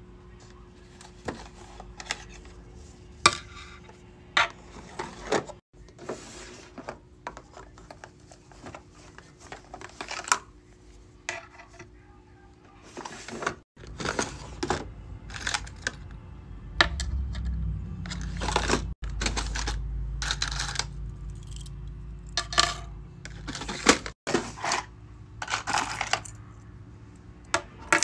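Hands handling small hard items: plastic storage drawers sliding and clacking, and keychain pieces clicking and clinking as they are picked out and set down on a table. The clicks come in quick irregular runs, with a low rumble under them in the middle stretch.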